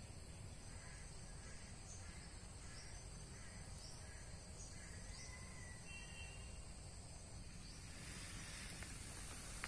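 Faint field ambience: a steady high insect drone, with short chirps repeating about once a second and a few brief bird-like calls around the middle, over a low rumble.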